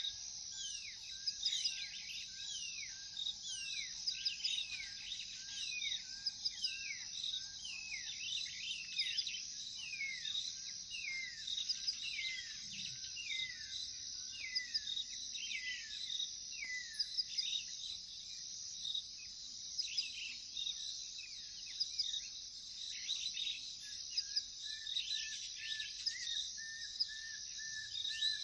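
Birds singing over a steady, high chorus of crickets and other insects. One bird repeats quick falling whistled notes about twice a second and stops about two-thirds of the way through. A steady pulsing trill drops out in the middle and comes back near the end.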